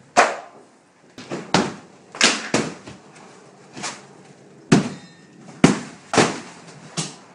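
Sledgehammer blows smashing drywall off a wood-stud interior wall: about a dozen sharp, irregular impacts, each a hard crack that dies away quickly.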